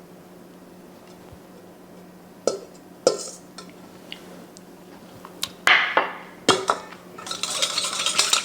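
A metal utensil clinking against a bowl of dressing: a handful of separate clinks, then a busier stretch of quick scraping and clinking near the end.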